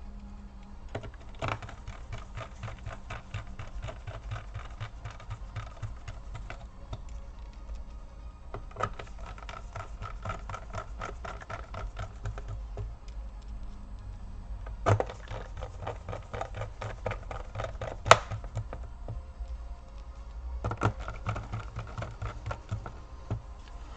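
Small screwdriver driving screws into a laptop's plastic base: a long run of fast, light clicking and ticking, with a few sharper knocks about a second and a half in and twice in the second half.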